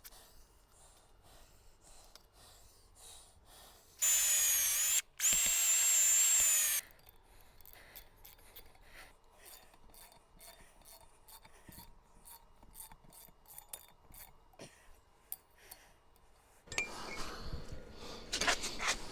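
A power drill runs in two short bursts about four seconds in, its whining motor dipping in pitch for a moment under load. Faint clicks follow, and near the end there is a rubbing, scraping sound of handling.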